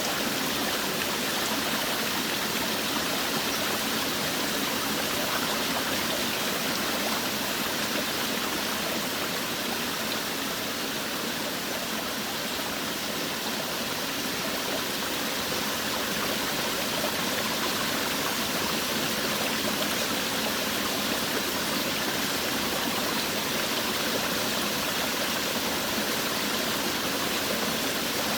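Forest waterfall: water falling and rushing steadily in an even, unbroken hiss with little deep rumble.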